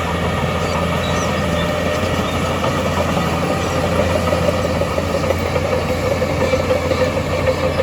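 Heavy earthmoving machine's diesel engine running steadily, with a low drone that grows a little stronger about halfway through.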